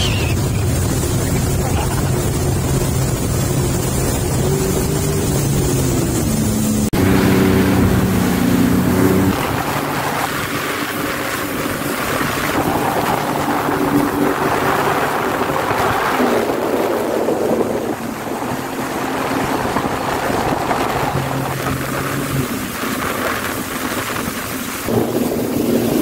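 Jet ski engine running at speed, its pitch shifting with the throttle, over rushing water and wind on the microphone.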